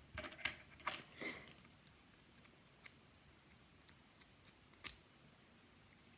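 Small sharp clicks and taps of metal lock parts being handled while a pin-tumbler lock is taken apart: a quick run of clicks at the start, then a few scattered single clicks.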